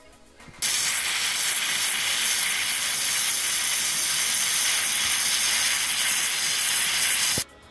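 Instant Pot electric pressure cooker venting steam through its pressure-release valve: a steady, loud hiss that starts suddenly about half a second in and cuts off suddenly near the end, as the built-up pressure is released after cooking.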